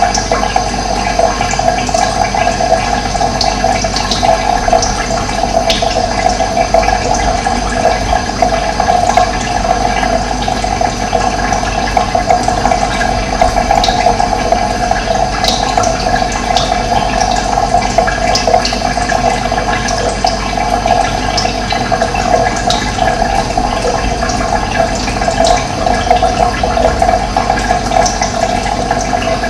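Running water rushing steadily, with brief bird chirps scattered over it.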